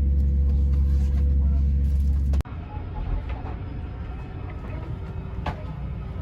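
Parked airliner cabin ambience: a steady low hum that drops off abruptly about two and a half seconds in, leaving a quieter even hiss with a few faint clicks.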